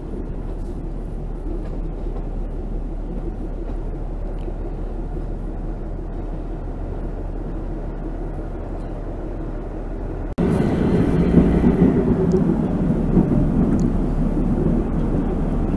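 Narrow-gauge passenger train running, a steady rumble of coach wheels and running gear on the track. About ten seconds in it cuts abruptly to a louder, heavier rumble.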